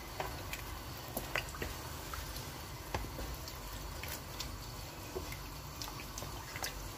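Wooden spoon stirring rice through meat stock in a large metal pot: soft sloshing and squelching of the wet rice, with a few faint ticks.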